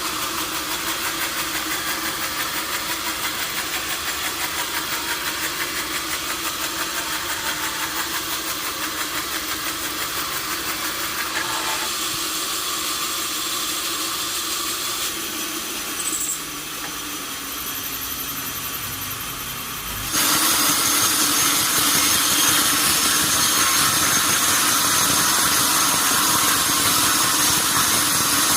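Sawmill machinery running steadily with a constant hum, dropping slightly about sixteen seconds in, then suddenly getting louder and hissier about twenty seconds in.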